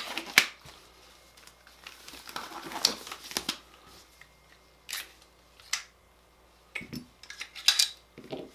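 Disposable gloves rustling as they are pulled on, then scattered clicks and knocks as gloved hands handle an AR-15 upper receiver on a rubber bench mat, with a cluster of clicks near the end.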